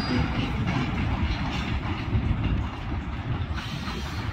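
Short local freight train rolling slowly past, its car wheels clicking over the rail joints, under a steady low rumble.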